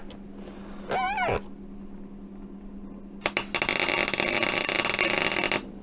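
Gasless MIG welder (Clarke Mini MIG 130EN with 0.9 mm flux-cored wire, on its lowest setting) laying a test weld on scrap sheet steel to dial in the power and wire feed: a brief crackle as the arc strikes about three seconds in, then about two seconds of steady crackling arc that cuts off abruptly. A short high-pitched call sounds about a second in.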